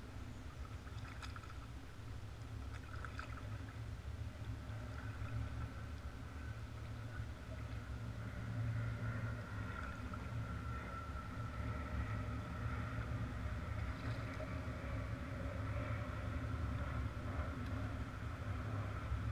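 Low, steady rumble of a kayak moving over calm water, heard through a GoPro mounted on the bow. A faint steady higher tone grows stronger about halfway through, and a couple of brief clicks come in the first few seconds.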